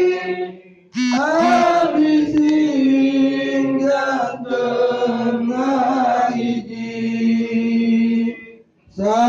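A man chanting a slow devotional chant into a microphone, holding long, drawn-out notes in one long phrase, with breaks for breath just after the start and near the end before the next phrase begins.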